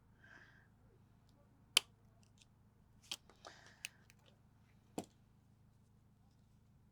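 A few sharp little clicks and taps, scattered and far apart, from small tools and parts being handled while a smartphone is taken apart.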